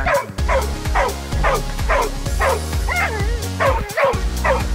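Black Labrador whining and yipping in short falling cries, about two a second, with one longer wavering whine about three seconds in: a harnessed dog impatient to run while held back on the jöring line. Background music underneath.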